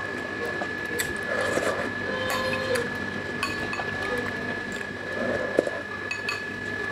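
A metal spoon clinking and scraping against a bowl a few times while noodles are eaten, with soft mouth sounds of eating between the clinks. A steady high-pitched tone hums underneath.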